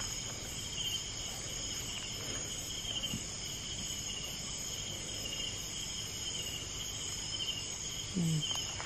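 Night insect chorus of crickets trilling steadily in several high pitches, one of them pulsing.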